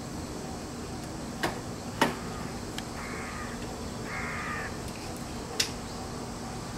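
A crow caws twice, about three and four seconds in. Around it come a few sharp clicks and knocks from a metal balcony drying pole as a heavy cotton blanket is hung over it, the loudest about two seconds in.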